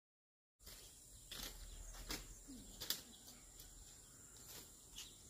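Dead silence for about half a second, then faint outdoor background: a steady high hiss with a few light clicks scattered through it.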